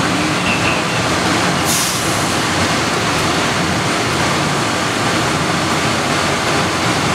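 Bombardier Innovia APM 100 people-mover car running on rubber tyres along its concrete guideway, a steady rolling noise with a low hum, heard from inside the car. A brief hiss comes about two seconds in.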